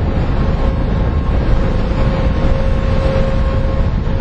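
Oil tanker's engines across the water: a steady low rumble with a faint steady hum, under wind buffeting the microphone.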